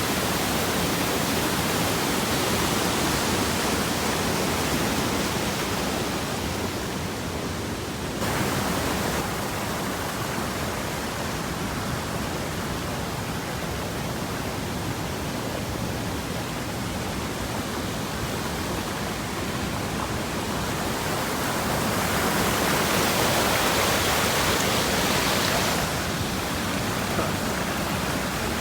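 Steady rush of water from waterfall cascades. The sound changes abruptly about eight seconds in and again near the end.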